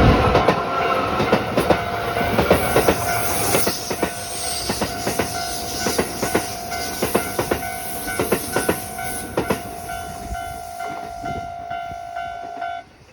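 A train passing over a level crossing, its wheels clacking over the rail joints while the rumble slowly fades. Over it the crossing's warning bell rings steadily, then cuts off suddenly near the end as the crossing clears.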